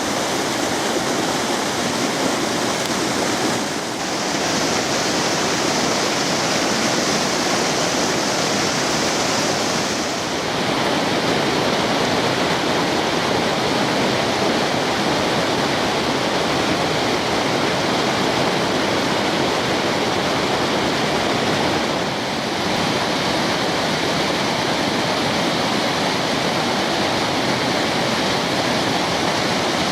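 Mountain stream rushing over rocks and rapids in a steady, loud rush of water. Its tone shifts three times, about 4, 10 and 22 seconds in.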